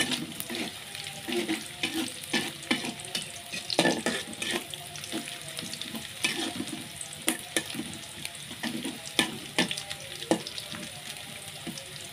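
Garlic and shallots sizzling as they sauté in hot oil, with a spatula stirring and knocking against the pan in irregular clacks. The clacks stop near the end, leaving the steady sizzle.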